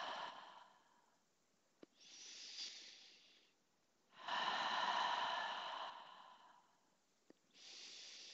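A woman breathing slowly and deeply while holding a Pilates side plank. One breath out fades away, a quieter breath in comes about two seconds in, a longer, louder breath out about four seconds in, and another breath in near the end.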